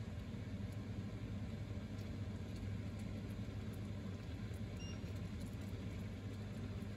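Chicken curry simmering in a frying pan: faint scattered bubbling pops over a steady low hum.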